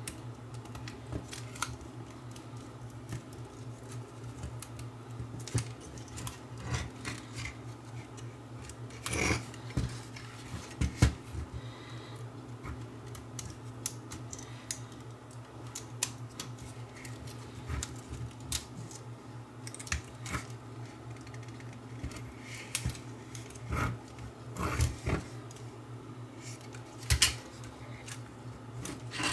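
Irregular small clicks, taps and scrapes of plastic and metal camcorder parts being handled and worked on with a small screwdriver, over a steady low hum. The sharpest knocks come around ten seconds in and again a couple of seconds before the end.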